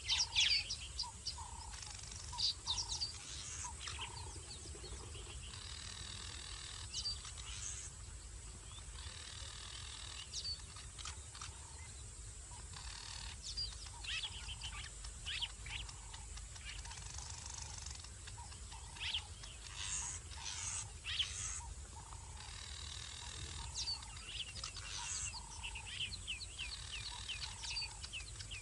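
A nocturnal chorus at a waterhole: many short, high chirping calls scattered throughout, with about-a-second-long trilling calls that repeat every few seconds, over steady low background noise.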